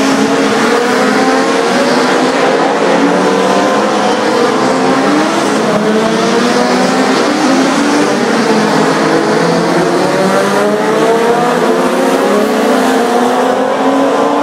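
A pack of Legends race cars running together, many high-revving engines heard at once, their pitches rising and falling as the cars accelerate and lift through the corners, over a steady hiss.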